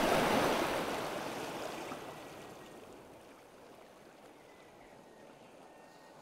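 A sea wave washing onto the shore, swelling at the start and fading away over the next two or three seconds into a faint, steady wash of sea.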